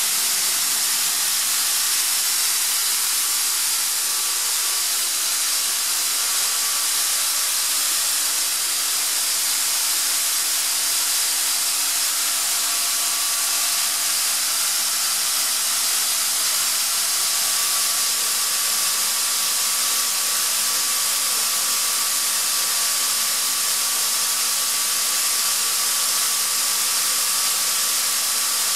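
Atlas Copco ZR 110 FF water-cooled, two-stage oil-free screw compressor running: a steady hiss with a few faint steady tones beneath it.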